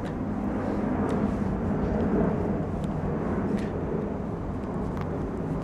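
Steady outdoor background noise on a residential street: a low, even rumble with a few faint brief ticks.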